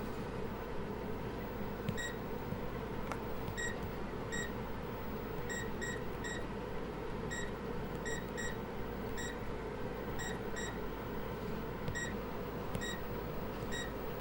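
Computer machinery humming steadily, with short high electronic beeps at irregular intervals, often in quick pairs, starting about two seconds in.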